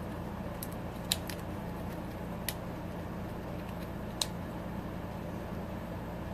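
A 3D-printed plastic fidget cube being turned in the hand: a few faint, separate clicks, about four, over a steady low hum.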